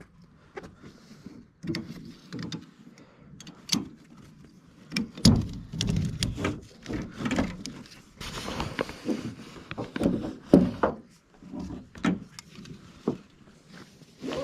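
Gear being handled: a run of irregular knocks, thumps and rubbing, with a longer scrape about eight seconds in.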